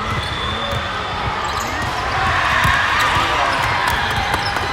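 Busy gymnasium din: many voices talking at once, with volleyballs bouncing and thudding on the hard court floor.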